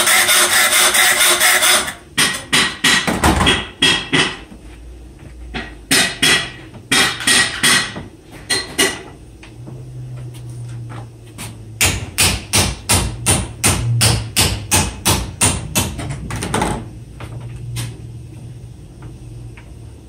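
Hammer blows on a flat mild-steel bar clamped in a bench vise, bending it into a curve; each strike rings. After about two seconds of loud continuous cutting noise, the blows come in irregular groups, then, after a pause, in a faster even run of about three a second.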